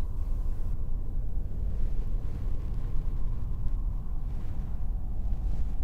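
Steady low rumbling drone with no distinct events.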